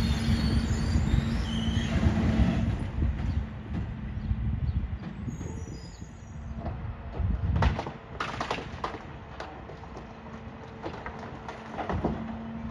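Rear-loader garbage truck running, with a steady hum over a low engine rumble for the first few seconds, then quieter. About eight seconds in comes a short clatter of knocks and bangs, and the steady hum comes back near the end.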